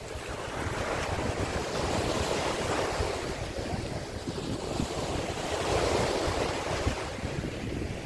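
Black Sea surf: small waves breaking and washing up the shore, the rush swelling and easing as each wave comes in, with wind rumbling on the microphone.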